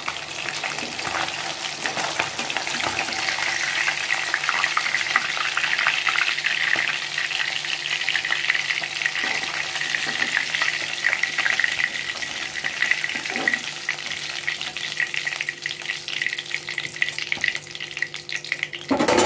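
Fish pieces sizzling and crackling steadily in hot oil in a wok, with a spatula scraping and turning in the oil now and then as the fried pieces are lifted out.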